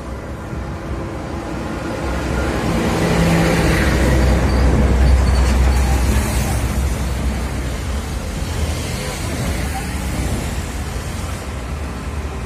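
A vehicle passing on the street: a low rumble with road noise that builds to its loudest about halfway through, then eases off.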